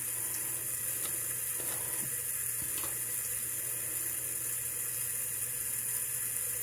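Steady hiss of a water tap left running, with a few faint rustles as a wet sheet face mask is peeled from its backing and unfolded.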